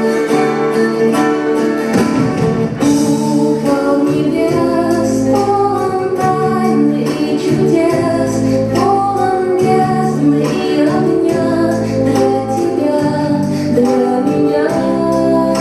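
Recorded song playing as dance accompaniment: female singing over instruments with a steady beat.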